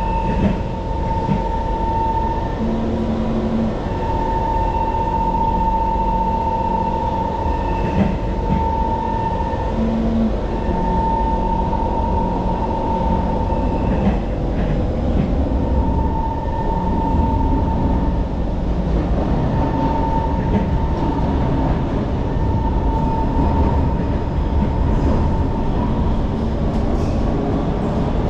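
Singapore MRT train running through a tunnel, heard from inside the car: a steady rumble of wheels on rail, with a high whine that comes and goes every few seconds.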